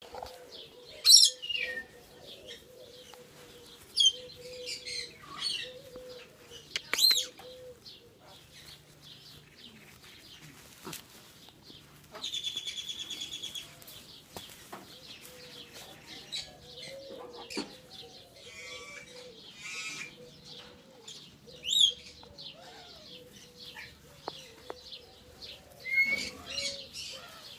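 Young hybrid macaw calling: a few short, sharp high squawks, soft low wavering grumbles in between, and a quick buzzing rattle about twelve seconds in. Light clicks and rustles run between the calls.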